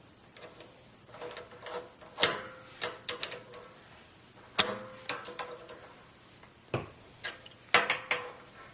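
Irregular sharp metal clicks and knocks, some with a brief ring, as the miter fence lock screw on a 4x6 metal-cutting bandsaw is tightened and the tools are handled.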